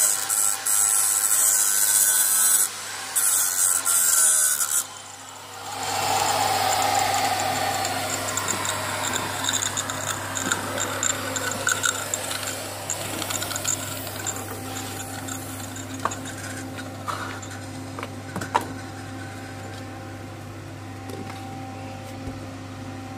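Metalworking tool noise: loud bursts of harsh hiss that start and stop during the first five seconds. After a short lull comes a falling whine and rougher noise that slowly fades, all over a steady low hum.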